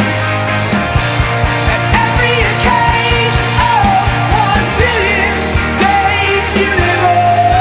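Rock song playing: a singing voice over a steady bass line and a regular drum beat, the voice coming in about two seconds in.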